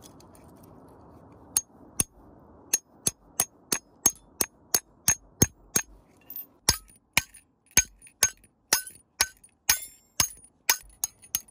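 Steel hammer tapping a steel piton wedged under the loose hanger of an old split-shaft climbing bolt, to start working the bolt out of the rock. The sharp, ringing metallic taps begin about a second and a half in and repeat two to three times a second.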